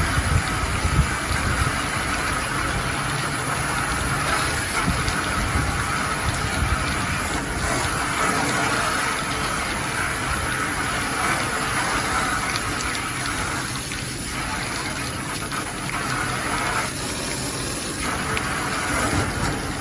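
A water jet gushing steadily against an air conditioner's outdoor-side fins as they are flushed, with a low rumble beneath the spray.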